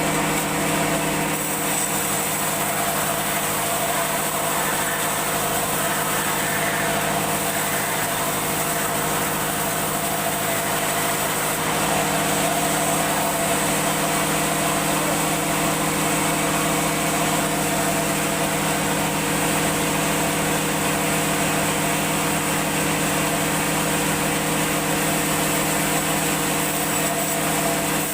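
A machine motor running steadily at constant speed, a steady hum with a broad hiss over it. The pitch and level don't change, so it is running without a load.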